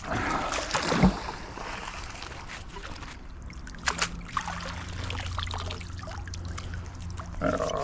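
A magnet on a rope smacks into the creek water with a loud splash about a second in. It is then dragged back through the water and hauled in on the wet rope, with a few small knocks along the way.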